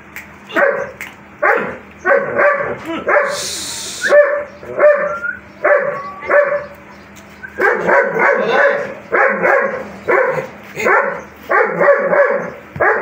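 A long-coated German Shepherd barking over and over in quick runs, one or two barks a second, with a pause of about a second just after the middle.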